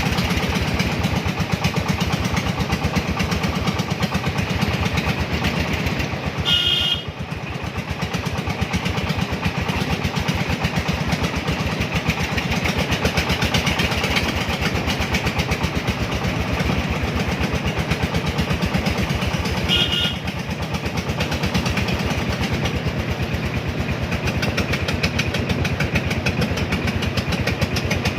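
Three-wheeler cargo vehicle's engine running steadily while driving, with two short horn beeps, one about seven seconds in and one near twenty seconds.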